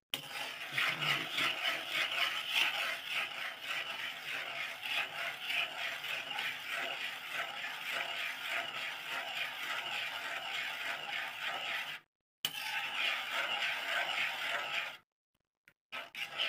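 Metal kitchen tongs scraping and rattling against a bowl as macaroni is tossed in a creamy mayonnaise dressing. The scraping is fast and continuous and breaks off briefly twice in the last few seconds.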